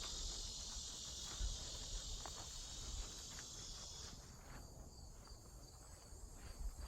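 Cicadas buzzing in a steady high-pitched chorus that cuts off suddenly about four seconds in, leaving only a faint thin trace of buzz.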